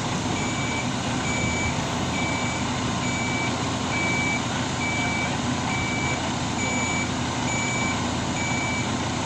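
A lorry's reversing alarm beeping steadily, a little more than once a second, over the steady running of a truck engine.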